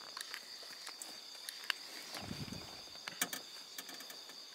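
Steady high-pitched drone of an insect chorus in the forest at dusk, with a few sharp clicks around the middle and a brief low rumble about two seconds in.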